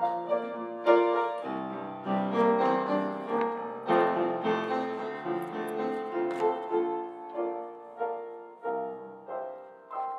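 Piano playing a slow, quiet instrumental passage of single notes and sustained chords, which dies away near the end.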